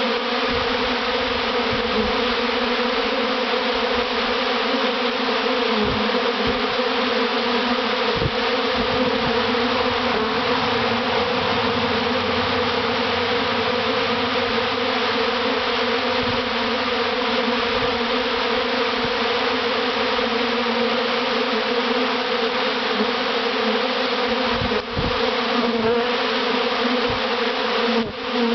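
Honey bee swarm in flight all around, thousands of wings making a dense, steady buzzing hum with a clear low drone pitch.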